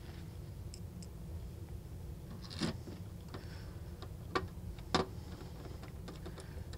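Small screwdriver working the screws of a clear acrylic electronics case, giving a handful of light, sharp clicks and taps, the clearest in the second half.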